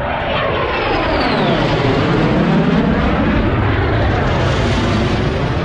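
F-35B Lightning fighter jet flying low overhead, a loud jet roar whose pitch sweeps down as it passes, about two seconds in.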